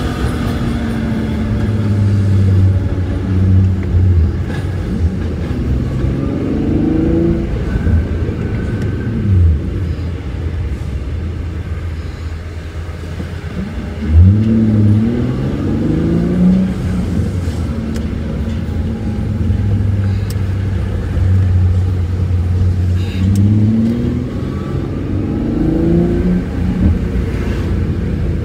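Infiniti G37's 3.7-litre V6 through an Ark Grip aftermarket exhaust with Mishimoto intake tubes, heard from inside the cabin while driving. It holds a steady low drone at cruise, and its pitch climbs in steps as the car accelerates three times. The hardest pull comes about halfway through.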